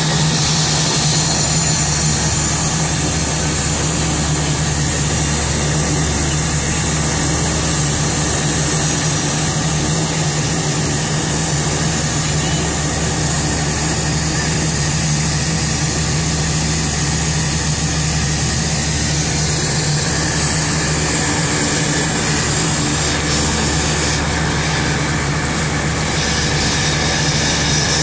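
Dornier 228's Garrett TPE331 turboprop engines and propellers running steadily at taxi power, heard inside the cabin, with a steady low propeller drone.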